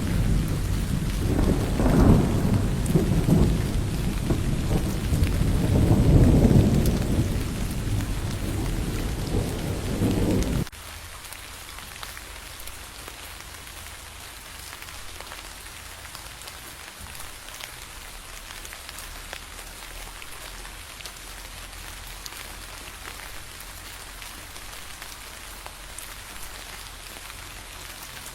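Rolling thunder rumbling over heavy rain, swelling twice, then stopping abruptly about ten seconds in. After that, only steady rain pattering on a surface.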